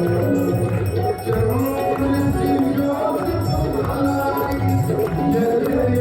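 Music with held melodic notes over a steady rhythmic beat.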